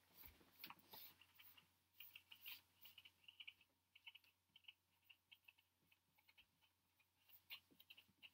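Marker pen writing on a whiteboard: faint, short squeaky strokes, several a second, as letters are written out.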